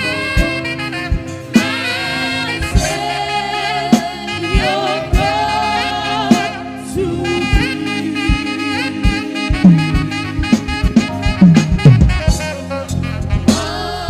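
Live gospel worship music: a wavering, ornamented melody line, sung or played on saxophone, over a band with drums. The drumming gets busier in the second half, with low tom-like thumps.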